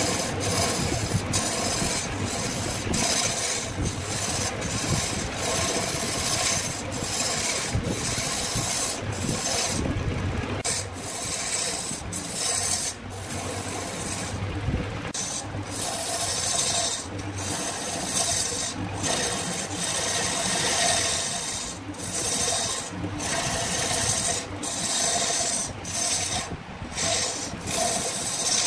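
A tool scraping and rasping against wood in repeated strokes, the sound breaking off briefly about once a second.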